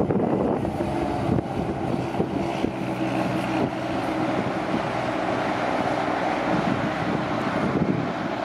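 Road train's heavy diesel truck engine running steadily, over road and wind noise.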